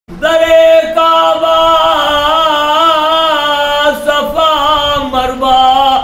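A man singing an Urdu devotional poem without instruments, holding long, wavering notes.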